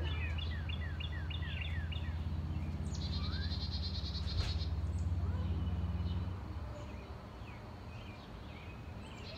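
Songbirds singing in the yard: a run of quick falling chirps at the start, a buzzy trill about three seconds in, then scattered calls. Under them runs a low steady drone, the loudest sound, which fades away about six seconds in.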